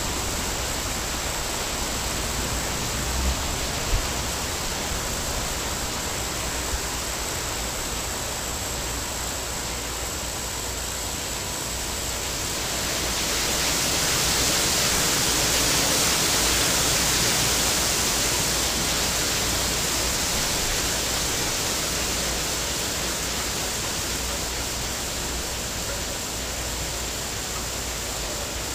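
Steady rushing hiss of outdoor background noise that grows louder and brighter for several seconds past the middle, with two faint clicks a few seconds in.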